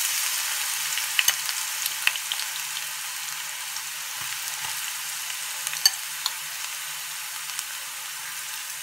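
Chopped onions sizzling in hot oil in a nonstick pan as they are stirred with a spatula. The sizzle is loudest at first and slowly eases, with a few sharp ticks scattered through it.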